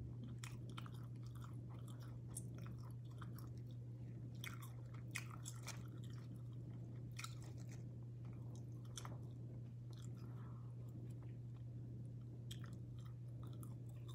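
A person chewing and eating quietly, with scattered light clicks and taps, over a steady low hum.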